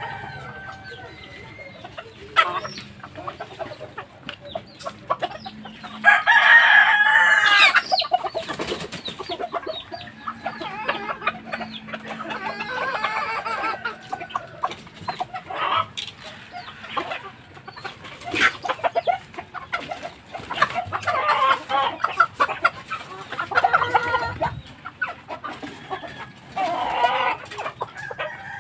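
Roosters crowing several times, the longest and loudest crow about six seconds in, with hens and cocks clucking in between.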